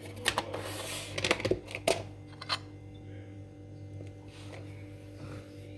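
A metal spoon clinking and scraping against a ceramic plate: a handful of sharp clicks in the first two and a half seconds, over a steady low hum.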